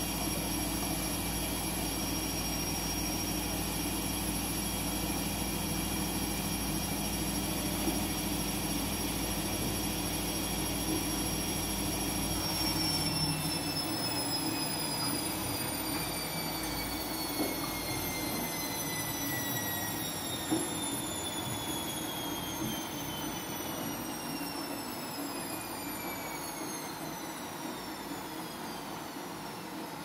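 Siemens front-loading washing machine in its spin cycle: a steady high motor whine over a rumble at full spin speed, then, a little under halfway through, the rumble drops away and the whine glides steadily downward as the drum spins down.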